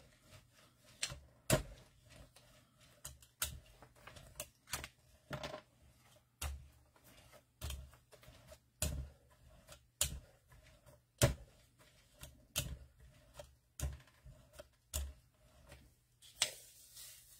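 Irregular sharp taps and clicks, about one or two a second, from hands working paint and paper on a gel printing plate, with a brief rustle near the end.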